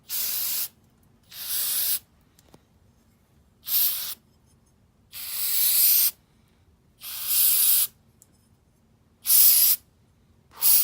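Aerosol carburetor cleaner sprayed onto a pit bike carburetor in about six short bursts of hiss, each half a second to a second long, with pauses between.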